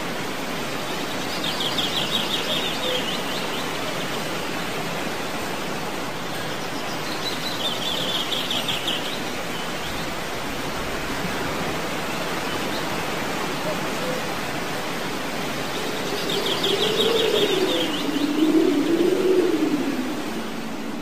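Sea surf rushing steadily, with three short bursts of a rapid, high bird trill. Near the end a low tone starts sliding up and down.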